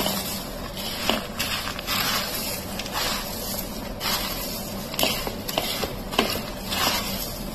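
A hand tossing crisp fried Kerala mixture (sev, boondi, peanuts and fried chana dal) in a steel plate, working in chilli powder, salt and asafoetida: a dry crunchy rustle with many small clicks of pieces dropping onto the metal.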